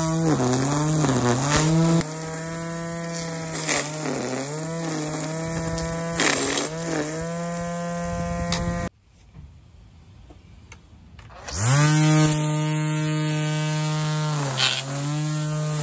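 Hart 40V cordless string trimmer's electric motor whining at speed, its pitch sagging and recovering several times as the line bogs down while cutting. It cuts off about nine seconds in and spins back up a couple of seconds later.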